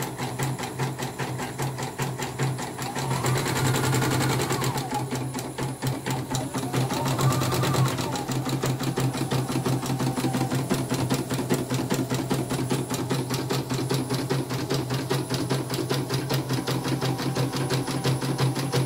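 CNY computerised embroidery machine stitching at speed, a fast even run of needle strokes over a steady motor hum, with two brief rising-and-falling whines about 3 and 7 seconds in. It runs smoothly on its newly replaced drive motor, the old one's bent shaft having made it turn heavily.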